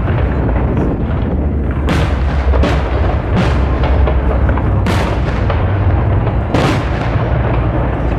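Fireworks going off: a dense, continuous rumble of many explosions, with sharper bangs standing out about two, two and a half, three and a half, five and six and a half seconds in.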